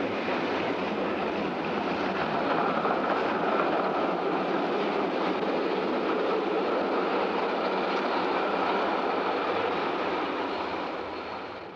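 Tram running along street rails: a steady rolling noise of wheels on track that fades out near the end.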